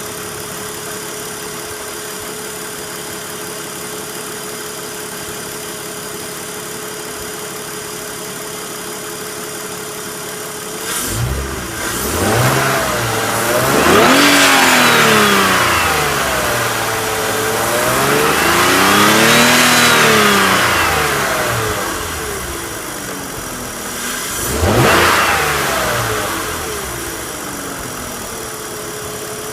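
BMW engine idling steadily, then revved up twice and blipped once before settling back to idle. There is no VANOS rattle: the repaired VANOS unit is working properly.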